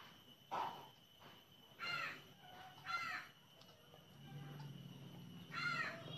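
A crow cawing several times, short harsh calls about a second apart, over a faint steady high-pitched whine.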